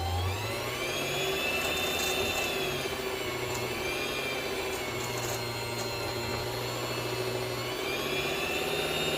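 Sewing machine motor driving the bobbin winder, winding thread onto the bobbin: a steady motor whine whose pitch dips and rises a couple of times as the speed changes.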